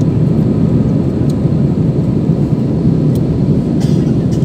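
Steady low rumble of a jet airliner's cabin during the climb after takeoff: the engines at climb power and the rush of air past the fuselage, heard from a window seat.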